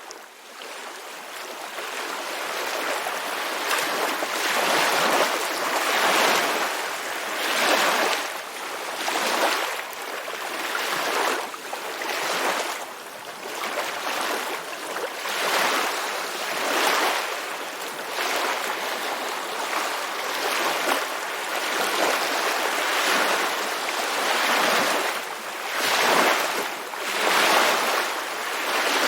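Ocean surf: waves washing in and breaking, a steady rush of water that swells and falls every second or two. It fades up over the first few seconds.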